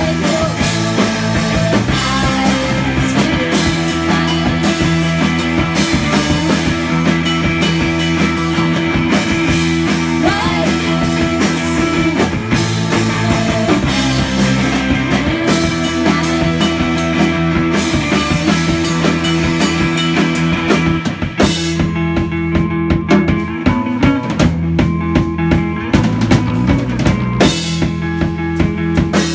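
Live rock band playing: electric bass, electric guitar and drum kit together, loud and dense. About 21 seconds in, the sound thins out and the drum hits stand out one by one.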